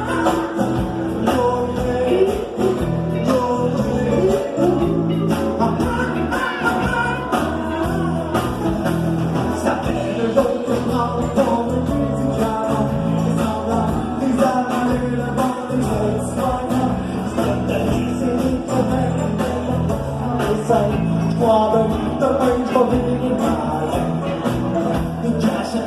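A band playing a rock-and-roll style song with a steady beat, a repeating bass line and a singing voice above it.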